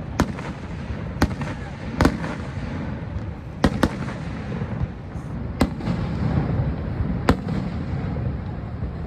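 Fireworks shells bursting in a series of sharp bangs, about seven of them a second or more apart, two in quick succession near the middle, over a steady low rumble.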